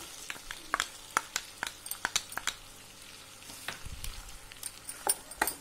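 Chicken pieces frying in oil in a cooking pot as yogurt is added and stirred in with a wooden spoon: a faint steady sizzle with scattered sharp clicks and pops.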